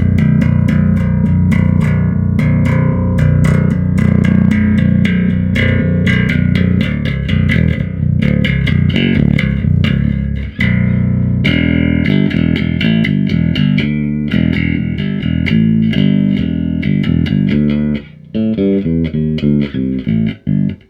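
Bass guitar played through an Ashen APG1000.2 bass amp head with the presence control turned up full, giving a very, very bright tone. A run of fast notes, with a brief break about ten and a half seconds in and choppier, separate notes near the end.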